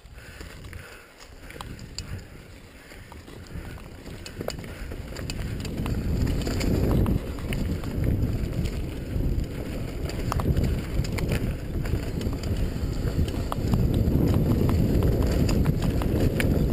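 Wind rumbling on the microphone of a mountain bike rider's action camera, growing much louder about five or six seconds in as the bike picks up speed downhill, with frequent clicks and rattles of the bike over the rough dirt trail.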